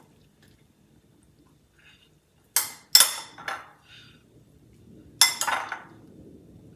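A metal spoon clinking against a glass mixing bowl while scooping out a chopped vegetable filling. There are three sharp clinks about two and a half seconds in, then two more later, each with a short ring.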